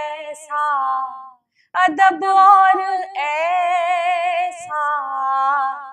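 A woman singing an Urdu naat unaccompanied, drawing out long wavering notes without words. She breaks briefly for breath about one and a half seconds in.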